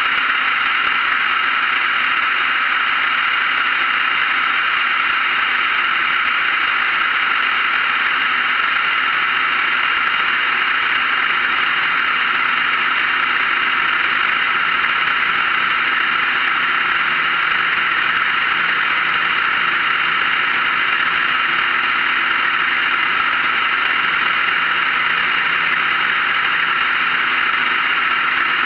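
Steady in-flight noise of a light propeller aircraft: the engine and propeller drone under a strong, even hiss, unchanging throughout.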